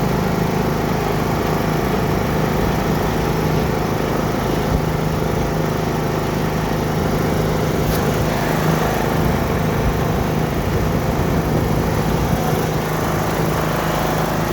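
Riding lawn mower engine running steadily while mowing, with wind blowing on the microphone.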